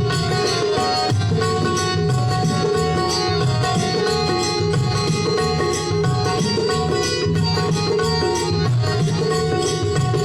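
Harmonium, tabla, octopad and jhaal playing together without singing in a sound check: held harmonium notes over a repeating drum pattern, with frequent jhaal cymbal strokes.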